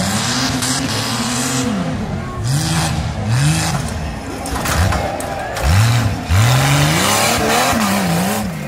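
Rough-truck race truck's engine revving hard as it charges over a dirt course, the pitch climbing and dropping again and again with each burst of throttle.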